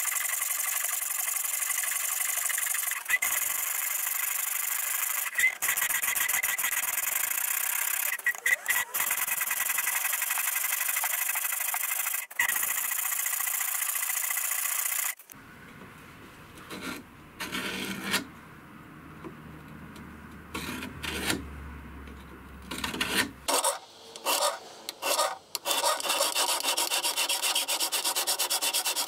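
Flat hand file rasping across a steel knife blade's bevel in steady strokes, with a few short breaks. About halfway through the filing stops for roughly ten seconds, leaving scattered light knocks. The rasping starts again near the end in quick, even strokes.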